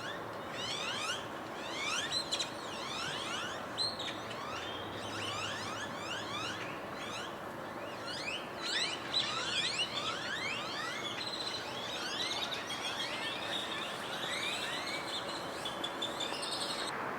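A flock of birds calling together: many overlapping short rising chirps, with a steady hum of background noise underneath.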